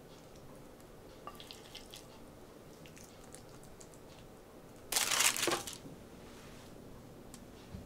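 Soft scrapes and clicks of a wooden spoon scooping a mayonnaise filling out of a ceramic bowl and spreading it onto a slice of white bread, with one loud, scratchy rustle lasting well under a second about five seconds in.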